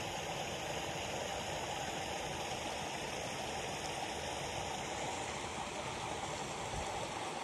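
Steady, even rush of falling water from a backyard pond's waterfall.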